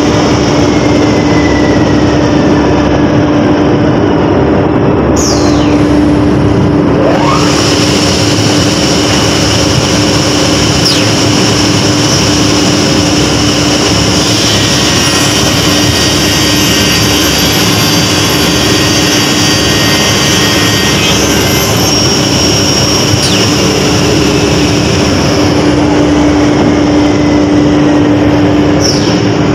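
Plywood double sizer running: its saw motors and dust extraction make a loud, steady industrial drone with a constant hum.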